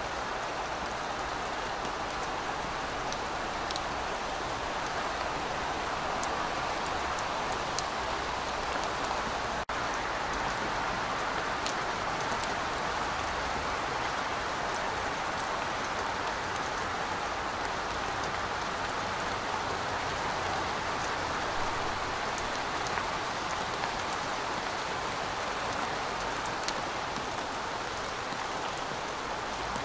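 Steady rain falling: a dense, even hiss with scattered individual drop ticks, broken by a momentary gap a little under ten seconds in.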